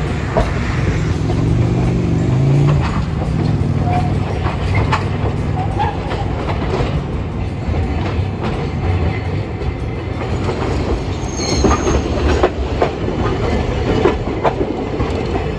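Streetcars running over street-track rails and points: a continuous rumble of steel wheels with sharp clacks as the wheels cross rail joints and switches, and a brief high wheel squeal about two-thirds of the way through.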